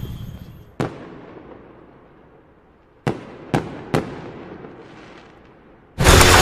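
End-screen sound effects for an animated logo: a sharp hit about a second in, then three quick hits a few seconds in, each with a short fading tail. Near the end a loud, sustained rushing noise starts as a metal roller-shutter graphic slides down over the screen.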